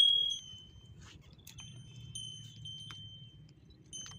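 A small metal bell ringing: the clear ring of a strike just before dies away over the first half second, then fainter rings at the same pitch sound again several times, unevenly spaced.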